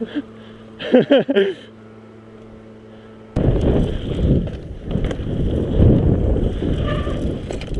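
Wind buffeting a helmet camera and mountain bike tyres rumbling over a loose gravel trail at speed, starting abruptly about three seconds in. Before that, a short burst of voice over a low steady hum.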